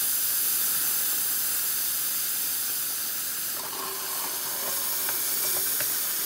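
Fluid extractor hissing steadily as it sucks old brake fluid out of the master cylinder reservoir through a hose. About three and a half seconds in, the sucking sound changes.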